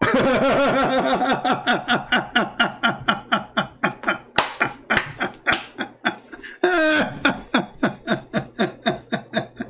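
A man laughing hard, a long run of short 'ha' pulses, a few a second, with a brief break about seven seconds in.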